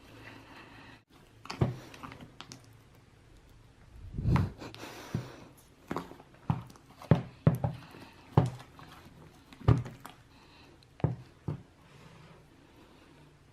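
Homemade slime being played with: a run of about ten sharp pops and squelches at irregular intervals, some followed by a brief wet crackle.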